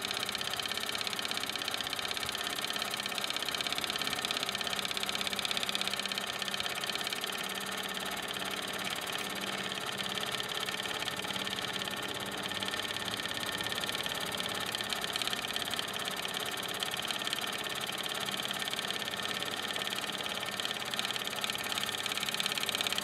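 A 1929 Meccano toy steam engine running steadily under steam, driving a Mamod WS1 workshop's line shafting and pulleys by string belts, with a fast, even mechanical beat and a hiss.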